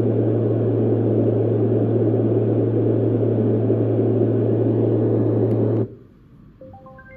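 White noise sound machine playing a deep, steady rushing noise with a low hum underneath, which cuts off sharply about six seconds in. A quick run of short tones rising step by step in pitch follows near the end.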